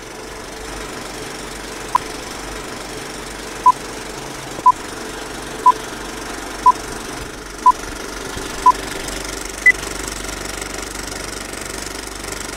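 Film-countdown leader sound effect: a steady old film projector clatter with a short beep once a second, seven in all, then one higher-pitched beep about ten seconds in.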